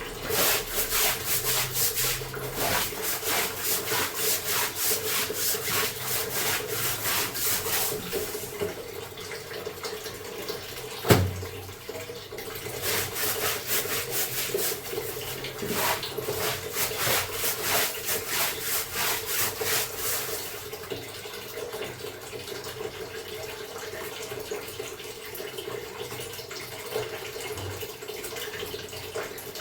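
Wet clothes being scrubbed by hand in rapid rhythmic rubbing strokes, in two long bouts with a single sharp knock between them, over a steady background of water.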